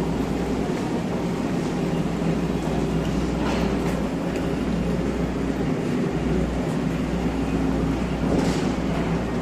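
A train running through the station with a steady low hum, and two brief faint hisses partway through.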